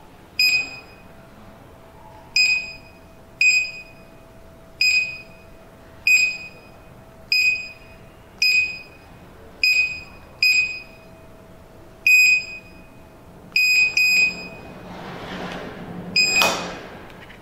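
The built-in buzzer of a keypad RFID access control unit gives a short high beep for each key pressed, a dozen or more at an uneven pace as numbers are keyed in. Near the end a soft noise swells before one last beep.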